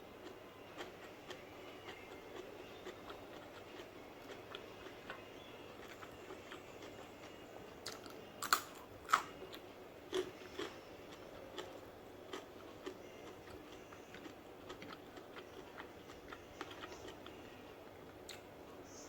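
Close-up chewing and biting of food, with wet mouth clicks throughout and a few louder sharp clicks or crunches about halfway through.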